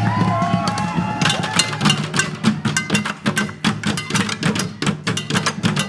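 Street band percussion playing a fast rhythm of sharp drum and stick hits, starting about a second in, over a steady low tone.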